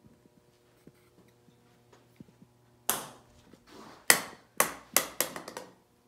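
A golf ball chipped with a club, one sharp knock about three seconds in, then landing on a pool table and bouncing several times, the knocks coming quicker as the bounces die away.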